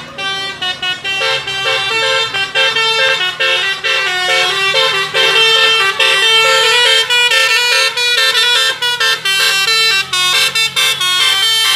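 Bus's 'telolet basuri' musical horn playing a quick melody of stepping notes, sounded loud in a run of short blasts.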